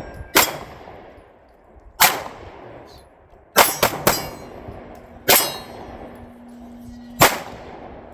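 Seven pistol shots fired at an uneven pace, with three in quick succession near the middle, each followed by a short echo; the string runs the magazine empty.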